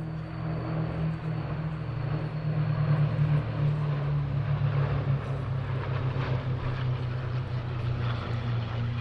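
Piston-engined propeller aircraft flying overhead, a steady engine drone that grows louder about two to three seconds in as it passes.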